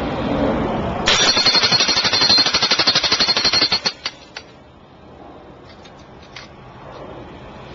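Electric jackhammer with an Oz-Post driving head, hammering rapidly on a steel post anchor to drive it into firm ground. It stops just under four seconds in, and after that there are only a few light clicks and knocks.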